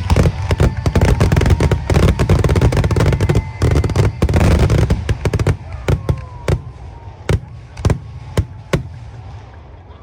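Aerial fireworks going off: a dense, rapid barrage of bangs and crackling for about five seconds, then thinning to single booms about half a second apart that die away near the end, typical of a display's finale.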